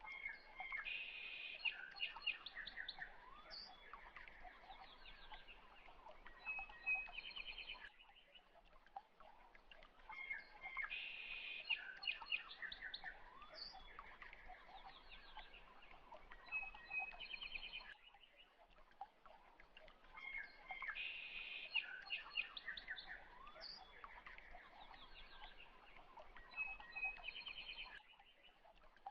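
Birds chirping and trilling in a short recorded sequence that repeats identically about every ten seconds, a looped birdsong background track.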